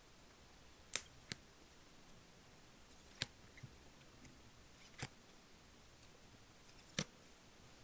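Clear plastic photocard sleeves clicking against each other as cards are moved through a small stack: about five short, sharp clicks, a second or two apart.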